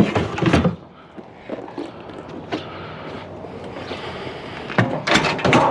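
Knocks and clatter of discarded items being handled and shifted about, in a burst at the start and another near the end, with quieter rustling between.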